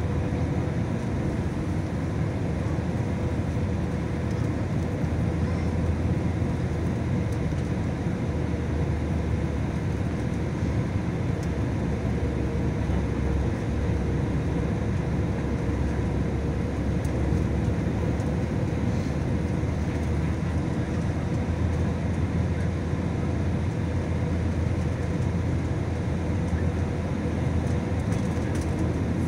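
Cabin noise of an Airbus A320-family airliner on final approach, heard from a window seat over the wing: the jet engines and rushing air make a steady, even rumble with a faint steady hum in it.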